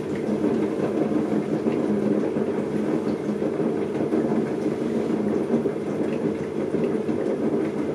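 Electric potter's wheel running at a steady speed with a low, continuous hum while wet clay is pulled up under the fingertips into a mug wall.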